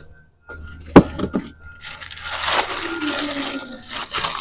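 Cardboard box and paper being handled: a sharp knock about a second in, a few lighter clicks, then a stretch of paper and cardboard rustling.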